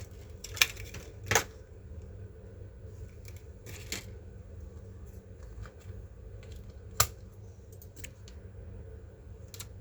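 Scattered sharp clicks and taps of small plastic and metal laptop parts being handled during a RAM and SSD upgrade. The loudest come about half a second in, near a second and a half, and about seven seconds in, over a steady low hum.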